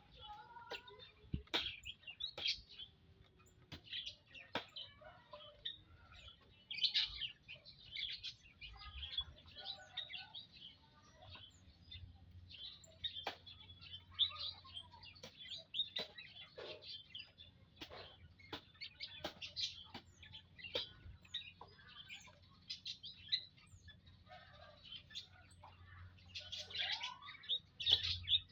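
A flock of munias in an aviary chirping with many short, high call notes, mixed with scattered sharp ticks. The calls grow busier near the end.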